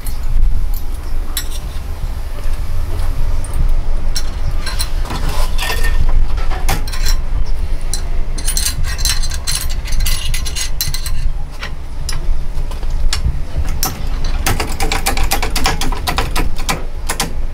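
Steel crankshaft parts and press blocks clicking and clinking against the bed of a hydraulic press as they are positioned by hand, over a steady low hum. The clicks grow dense and rapid in the last few seconds.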